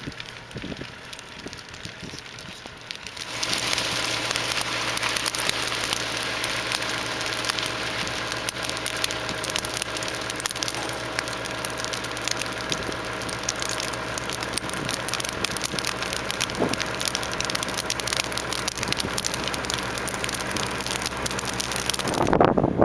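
Prairie grass fire crackling and popping in a dense, rain-like rush that starts about three seconds in, over a steady engine hum. Wind buffets the microphone near the end.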